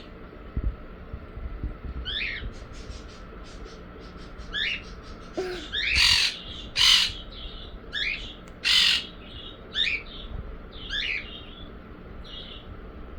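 Pet parrots calling: short falling chirps about once a second, with a few louder, harsh squawks in the middle.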